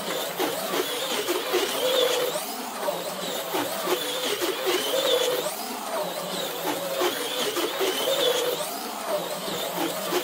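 HO-scale magnet-traction slot car running laps on a routed track. Its small electric motor whines, the pitch rising and falling in a repeating cycle about every two seconds as it speeds up and slows through the corners each lap.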